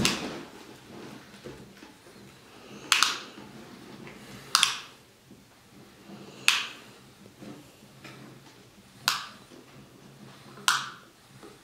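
Five sharp, short clicks, spaced about one and a half to two and a half seconds apart, over a faint low hum.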